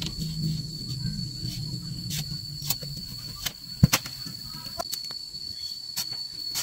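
Scattered light clicks and knocks of bamboo strips being handled at a woven bamboo wall, with one sharper knock a little after halfway. Under them a steady high insect whine, like a cicada or cricket, holds one pitch throughout.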